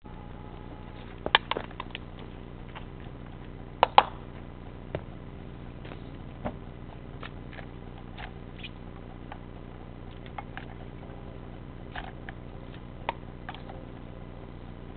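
Scattered sharp clicks and knocks of a plastic bottle, a funnel and the filler caps being handled on a Jonsered chainsaw that is not running, readied for fuelling; the loudest knocks come about a second and a half and four seconds in. A steady low hum lies underneath.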